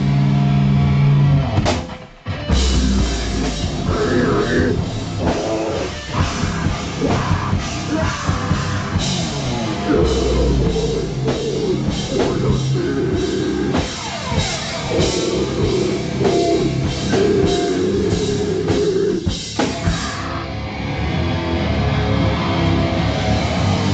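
Loud heavy rock band playing live: drums, guitars and some vocals, with a brief break about two seconds in before the band comes back in.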